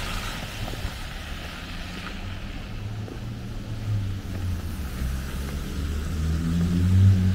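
Cars driving on a wet, slushy winter street: a fading tyre hiss as one car pulls away, then a low engine rumble that grows louder as more cars approach near the end.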